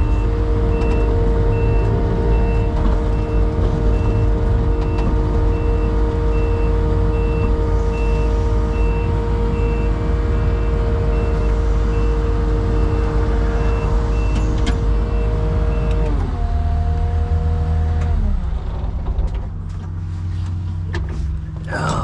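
Diesel machine engine running at raised speed with a backup alarm beeping about twice a second. About three-quarters of the way through, the beeping stops and the engine slows down to a lower idle.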